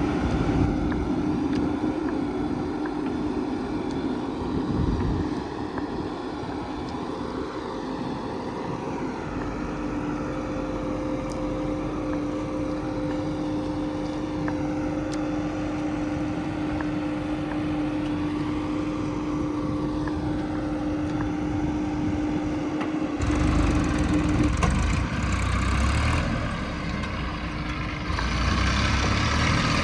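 Diesel engine of earthmoving machinery (backhoe loader or tractor) running steadily with a held engine tone. From about 23 seconds in, a louder low rumble comes in.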